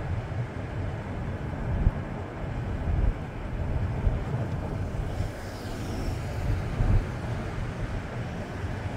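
Gusty wind buffeting the microphone over road rumble while riding along a street, with a few louder bumps.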